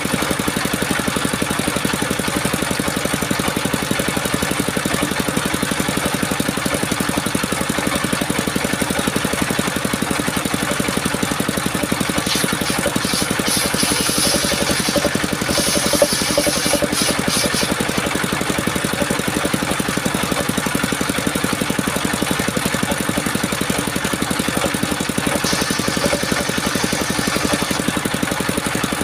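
Engine of a portable circular sawmill running steadily. About halfway through, for roughly five seconds, and again briefly near the end, a higher hissing rasp rises over it as the blade cuts through the coconut trunk.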